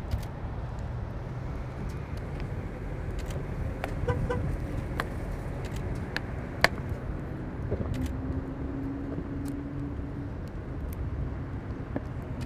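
Outdoor traffic noise, a steady low rumble of passing cars, with a short beeping toot like a car horn about four seconds in.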